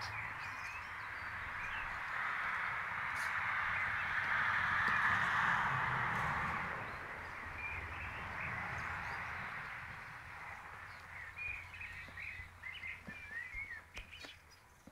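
Many crows cawing at once in a steady din that fades after about ten seconds, with a few small bird chirps near the end.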